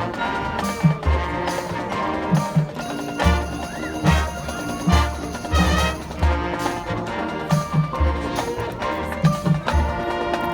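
High school marching band playing: brass and winds holding chords over repeated bass drum hits and crisp percussion strokes.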